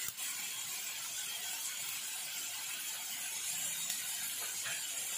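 Tomatoes, onions and garlic frying in oil in a stainless steel pan: a steady, soft sizzle, with a faint click at the very start.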